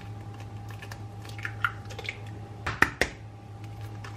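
A raw egg being cracked open into a stainless steel mixing bowl: a few light clicks of shell, then two sharp knocks about a quarter second apart just before three seconds in as the shell breaks.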